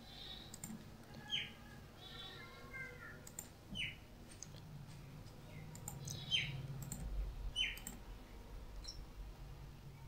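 A bird chirping in the background: four short chirps, each falling in pitch, spaced a second or two apart, with a brief warble about two seconds in. A few faint computer-mouse clicks sound among them.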